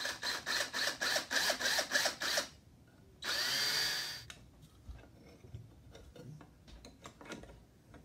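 Cordless drill/driver driving a screw into a metal electrical box: a rapid stuttering run of clicks, about five a second, for two and a half seconds, then after a short pause the motor whirs for about a second, rising in pitch. Light taps and handling follow.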